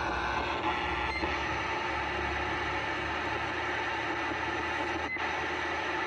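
Voyager CB radio receiver hissing with steady static, with a low hum underneath.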